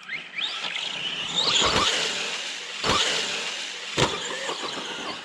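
Arrma Big Rock RC monster truck driven hard: its electric motor whines up in pitch under throttle over a loud rush of drivetrain and tyre noise, with three sharp knocks about a second apart as the truck bounces or hits something.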